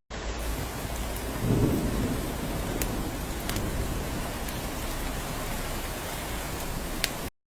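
Steady rain falling on a cabin roof, with scattered sharper drops and a short low rumble of thunder about a second and a half in. The sound cuts out for a split second near the end.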